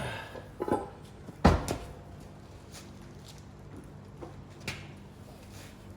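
A few sharp metal knocks and clanks from tools and parts being handled. The loudest comes about a second and a half in, followed by fainter scattered taps.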